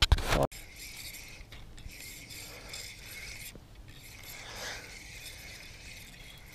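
Fishing reel being cranked, a steady mechanical whirr of the handle and gears; the angler says the reel still squeaks even after being lubed. A short loud burst of handling noise comes right at the start.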